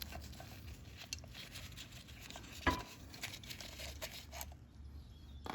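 Light handling noises while working on an ATV engine: scattered small clicks and crinkling, with one sharper knock about two and a half seconds in.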